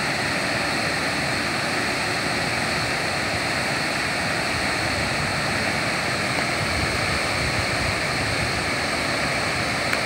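Waterfall rushing steadily, a constant even roar of falling water.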